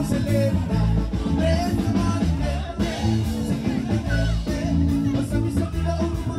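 Live band playing upbeat dance music: a singer over electric guitar, keyboard and a steady bass line.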